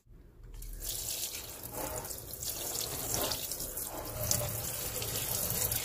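Water running from a tap onto towels in a plastic basket in a sink, soaking them. The rush of water builds within the first second, then stays steady.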